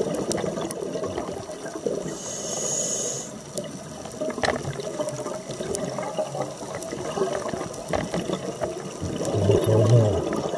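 Underwater water noise picked up by a diver's camera: a steady rushing and bubbling with scattered clicks, a brief hiss about two seconds in, and a low rumble near the end, the loudest moment.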